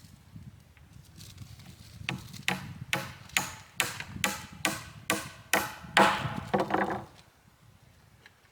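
A dozen or so sharp strikes on wood at a steady pace of roughly two a second, starting about two seconds in and stopping about seven seconds in.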